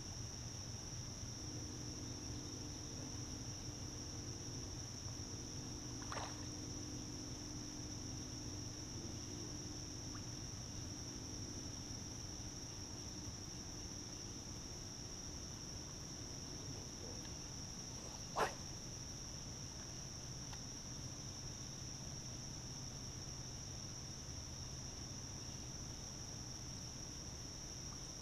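Steady high-pitched chorus of insects such as crickets, with a faint low hum underneath. Two sharp clicks cut through it, a faint one about six seconds in and a louder one about eighteen seconds in.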